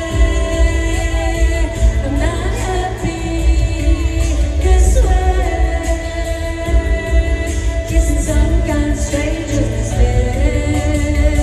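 Live music: a woman singing into a microphone to grand piano accompaniment, with a heavy bass.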